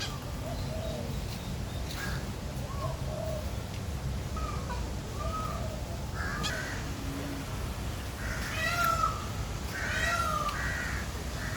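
Repeated short mewing animal calls, each a brief arched cry, coming every second or so and growing louder and fuller from about eight seconds in.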